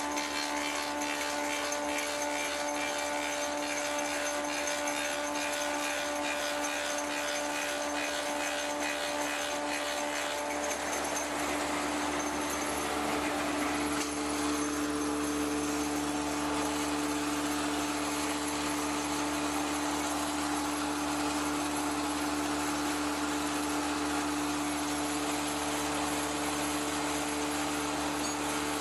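1885 Ober copying lathe running, its chain-and-sprocket drive and cutter head turning with a steady mechanical hum; the pitch of the running note changes about halfway through.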